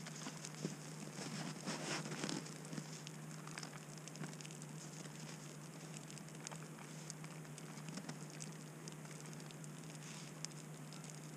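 Small twig campfire crackling with irregular sharp pops, over a steady low hum. A brief louder rustle comes about one to two and a half seconds in.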